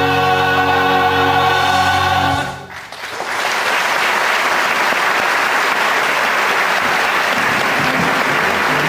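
A male chorus with orchestra holds a final sung chord that cuts off about two and a half seconds in. Audience applause then swells and carries on.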